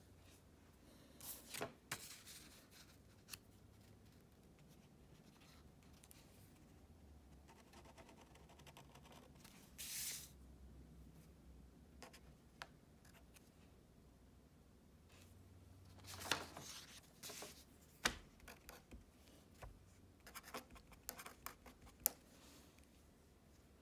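Faint scratching of a felt-tip pen on paper, drawing a line and then writing numbers in short quick strokes. A longer rustle of the paper being shifted comes partway through.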